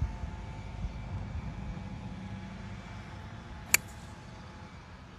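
Steady low outdoor rumble with one sharp click about three and a half seconds in.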